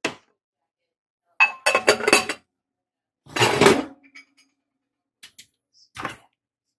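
Ceramic casserole dish, its lid and a metal serving spoon clinking and clattering as the dish of beans is handled on an oven rack. A knock at the start, a quick run of ringing clinks, a longer clatter, then light taps and a knock.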